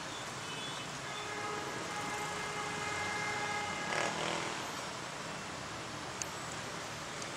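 Steady outdoor motor-vehicle noise, with a faint steady droning tone from about one to four seconds in and a brief louder rush about four seconds in.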